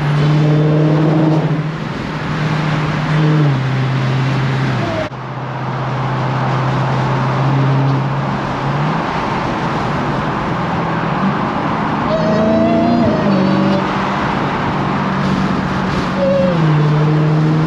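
Dodge Challenger SRT Hellcat's supercharged 6.2-litre Hemi V8, heard from inside the cabin at highway speed as a steady drone over tyre and road noise. Its note rises under acceleration and steps down in pitch as the automatic shifts up, with a faint high supercharger whine during the pull about twelve seconds in.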